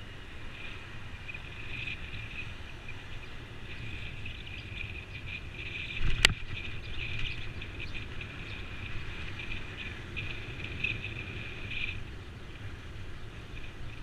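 Steady low rumble of wind and road noise from a camera riding on a moving bicycle, with a steady, flickering high-pitched hiss over it. A single sharp click-knock about six seconds in is the loudest sound.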